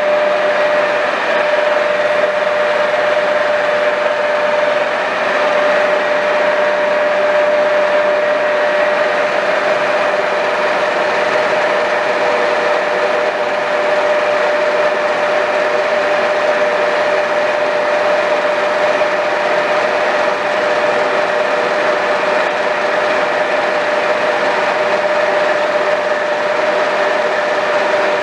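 Rockland engine lathe running with its spindle turning: a steady machine hum with a constant whine that holds the same pitch throughout.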